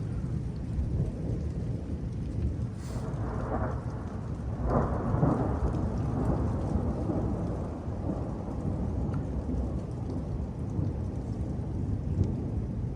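Thunder rumbling continuously over falling rain, with a louder peal of thunder swelling up about three seconds in and fading by about six seconds.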